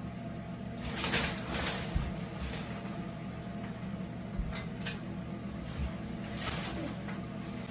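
A few short rustles and scrapes of a person stretching and gripping a metal shower curtain rod, over a steady low hum.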